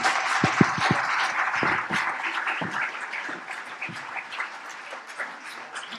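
Audience applauding, loudest in the first couple of seconds and slowly dying away.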